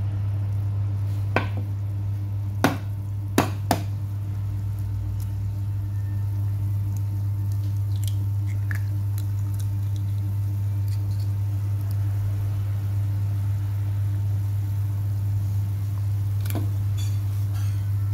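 A clay pot of soup bubbling at a simmer, over a steady low hum. There are a few sharp clicks in the first four seconds.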